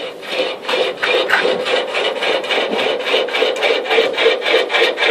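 Motorized shooting-range target carrier running the paper target downrange: a steady, rapid rasping clatter of about four or five strokes a second over a steady hum.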